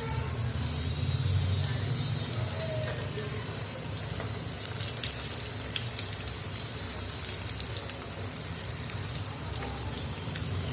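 Oat-crumbed chicken pieces deep-frying in hot oil: a steady sizzle with scattered crackles, with a few scrapes as the pieces are turned with a spatula and knife. A steady low hum runs underneath.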